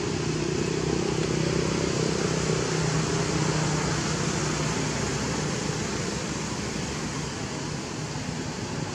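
Steady background noise with a low droning hum that slowly fades over the first half.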